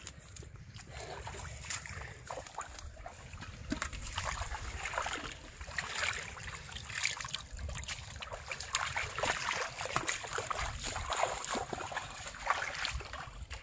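Irregular splashing and sloshing of shallow muddy water, from hands and fish moving in the water and feet wading through it, over a steady low rumble.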